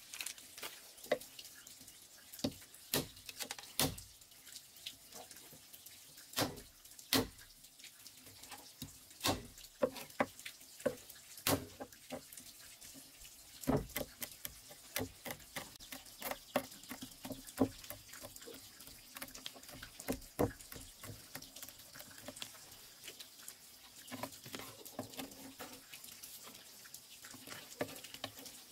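Large kitchen knife chopping on a thick wooden stump chopping block: irregular sharp knocks, coming quicker and more closely together in the middle stretch.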